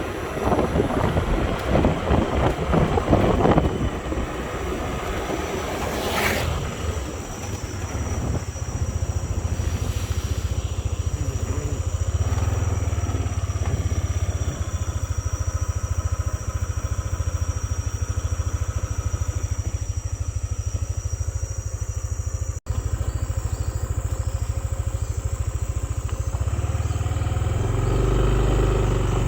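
Motorcycle engine running steadily while riding, with wind buffeting the microphone in the first few seconds.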